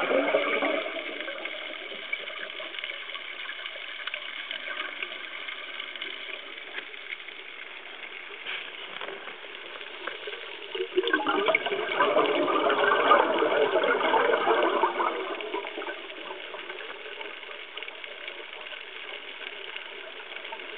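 Scuba diver's exhaled air bubbling out of the regulator, heard underwater through the camera housing. There is a short rush right at the start and a longer one from about 11 to 15 seconds in, with a steady faint hiss between.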